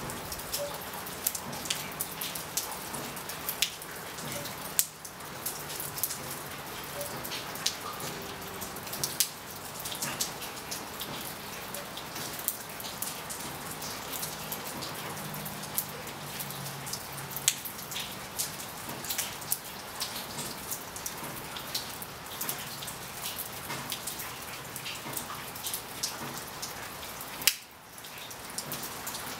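Steady rain falling, a constant hiss dotted with many sharp individual drop hits. The level dips briefly near the end.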